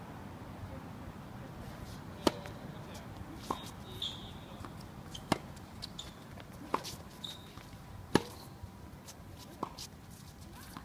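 Tennis rally: sharp pops of the ball struck by rackets about every one and a half seconds, alternating louder and softer, with a few lighter ticks between the strokes.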